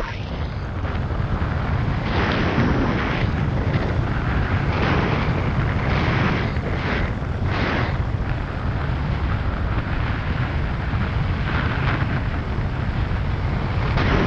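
Wind buffeting the microphone in a steady low rumble, with several brief hissing rushes through the first half.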